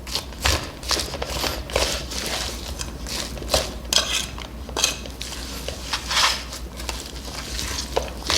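Close-up eating sounds: irregular crunchy chewing and bites, with utensils clicking against dishes.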